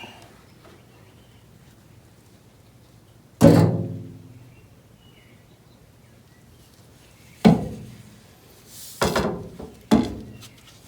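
Four sharp metal knocks. The first and loudest rings for about half a second, and three more come close together near the end, as a steering gearbox is worked into place against a car's steel front subframe.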